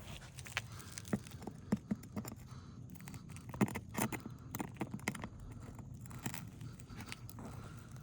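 Small pry bar scraping and clicking against roof shingles and a roofing nail as the nail is worked loose. The clicks and scrapes come irregularly.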